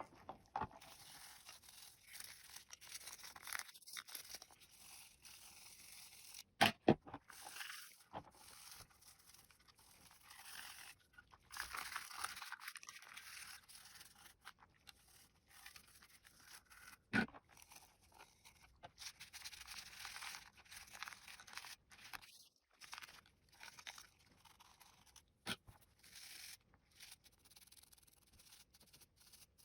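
Faint, uneven scrubbing and scraping as small plastic mouse parts are washed, in stretches that come and go, with a few sharp clicks of the parts being handled.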